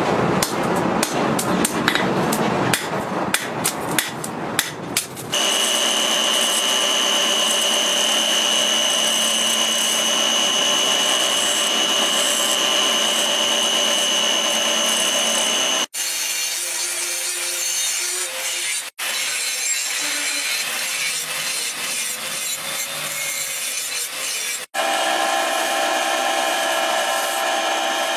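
Hammer blows on a red-hot steel knife blade on an anvil. About five seconds in they give way to an electric angle grinder running with a steady high whine as it grinds the blade. The grinding then carries on rougher, breaking off abruptly a few times.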